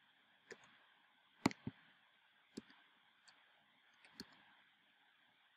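Slow, scattered keystrokes on a computer keyboard: about seven faint, separate clicks, the loudest about a second and a half in.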